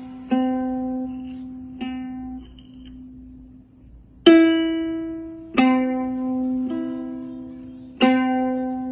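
Ukulele strings plucked by a cat's paw: about five single notes, a few seconds apart, each ringing out and fading. The loudest, slightly higher note comes about four seconds in.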